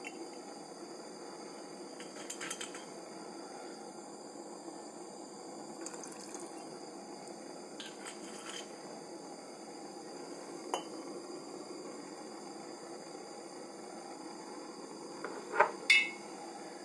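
Glass bottles and a metal saucepan being handled in a kitchen: a few light clinks and knocks, with two sharp clinks near the end, over a steady low hiss.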